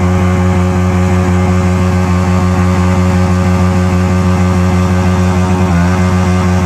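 Yamaha MT-15's single-cylinder engine held at high, steady revs during a burnout, its rear tyre spinning against the ground.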